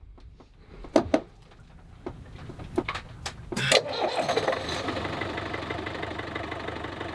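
A catamaran's port inboard engine. A few separate clicks and knocks, then it starts about three and a half seconds in and runs steadily, for a 30-second test run.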